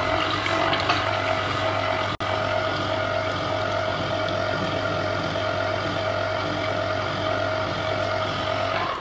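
Electric citrus juicer running, its motor spinning the reamer with a steady hum while orange halves are pressed down under the lever lid. The sound drops out for an instant about two seconds in.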